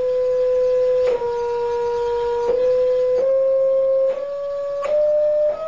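Steady sine test tone from a small speaker driving a Rubens tube, changed in pitch in small steps about six times, mostly upward, with a short click at each change. Each new frequency sets up a standing wave in the tube's row of propane flames.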